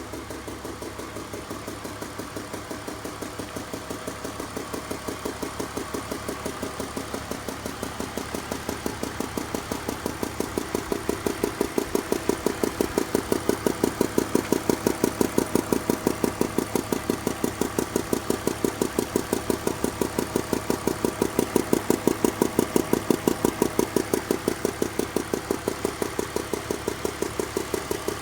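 2002 BMW 320i (E46) 2.2-litre straight-six idling with a steady, rapid ticking that the owner places at cylinders 3 and 4 and suspects comes from the hydraulic lifters. The ticking grows louder through the first half.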